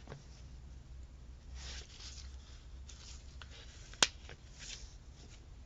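Soft rustling of thin paper sticker sheets being handled, a few brief rustles, with one sharp click about four seconds in.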